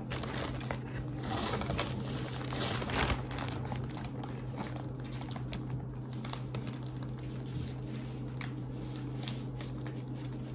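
Plastic mailer bag crinkling and crackling as it is handled and picked at to tear it open, with irregular crackles throughout over a steady low hum.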